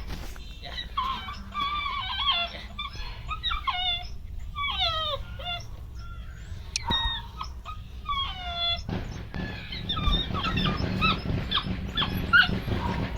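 Belgian Malinois puppies whining and yelping: a run of short high calls, each sliding down in pitch. About nine seconds in, a steady low rumbling noise comes in under further yips.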